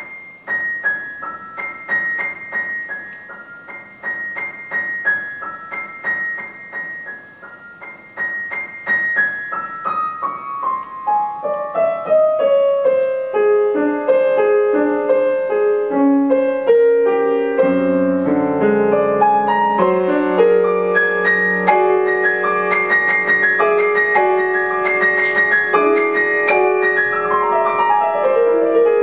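Solo grand piano playing a contemporary concert piece. It enters with quiet, repeated high notes and falling figures that build steadily louder and denser, with low bass notes and full chords joining about two-thirds of the way through.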